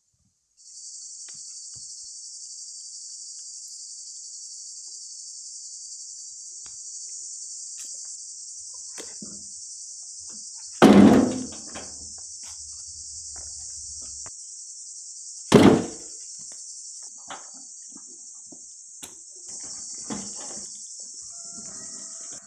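Steady high insect chorus, with two heavy thuds about eleven and sixteen seconds in as thick wood slabs are dropped into a steel wheelbarrow, the first ringing on briefly, and a few lighter knocks and clatters in between.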